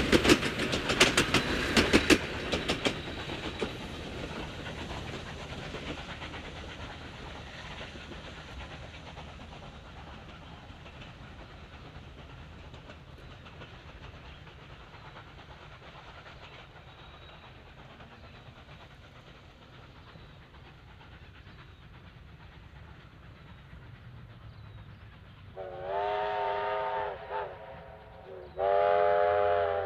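A train hauled by two 2-8-0 Consolidation steam locomotives passes close by with wheels clicking over the rail joints, then fades away up the line. Near the end come two chime blasts of a locomotive steam whistle, the second one longer.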